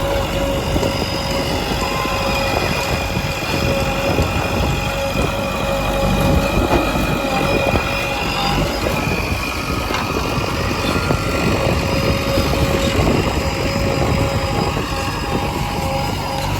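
Diesel engine of a JCB 3DX backhoe loader working steadily under load as it digs and loads mud.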